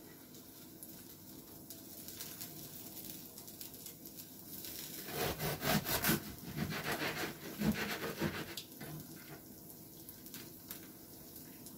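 Serrated bread knife sawing through a toasted, pressed chapata sandwich on a cutting board. It is a run of quick rasping strokes lasting about three seconds, starting about five seconds in, with faint handling sounds before and after.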